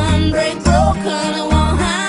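Background pop music with a heavy bass line and a melody line above it.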